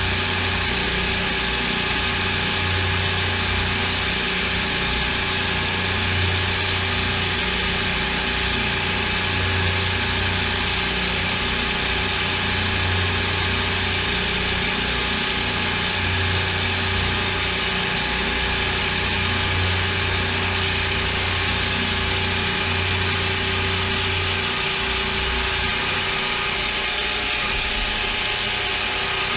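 CNC milling machine running through a machining cycle: a steady whine with fixed tones, under a low hum that comes and goes in stretches of a few seconds and stops about 25 seconds in.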